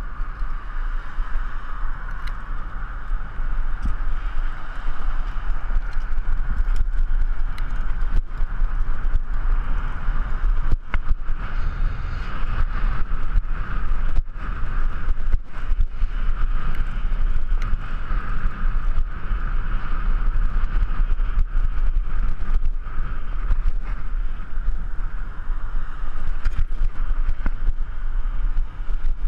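Wind and road noise on a bicycle-mounted GoPro camera while riding: a steady rumble and hiss, with scattered sharp knocks as the camera jolts over bumps.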